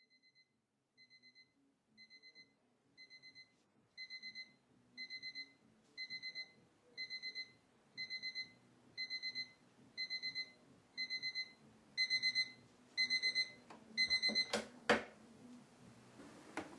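Electronic alarm clock going off: short bursts of rapid high beeps, about one burst a second, growing steadily louder. The beeping stops a little before the end, followed by a few sharp knocks.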